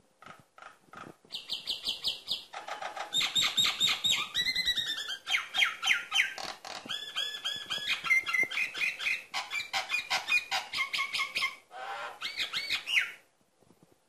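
Caged common myna singing vigorously: a long, varied run of quick repeated whistles and harsh chattering notes that stops about a second before the end.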